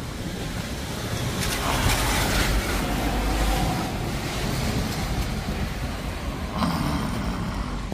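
Thunder rumbling in the distance, a deep rumble that swells about a second and a half in and fades after a couple of seconds, over a steady hiss.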